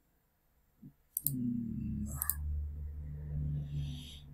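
Computer mouse clicks, two quick double clicks about a second apart, as browser tabs are switched. A low hum sets in about a second in and runs under them.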